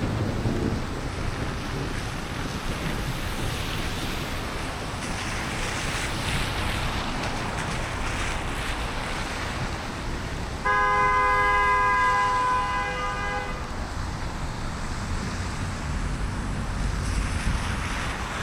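Steady hiss of rain and tyres on a wet road while driving. Past the middle, a car horn sounds once for about three seconds, starting and stopping abruptly.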